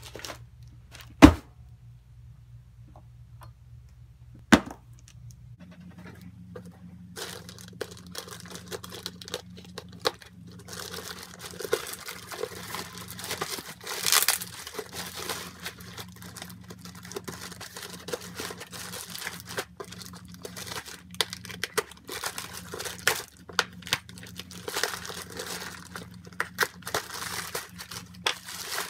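A plastic poly mailer bag being torn open and crinkled by hand, with dense rustling and tearing through most of the clip. This is preceded by two sharp knocks in the first few seconds, over a steady low hum.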